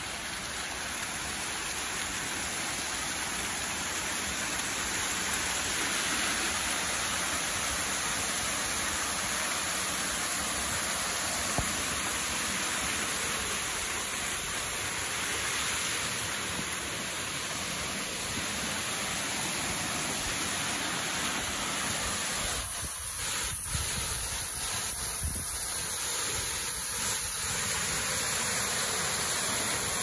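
Steady rush of a waterfall: water pouring over rock ledges and falling into a pool below.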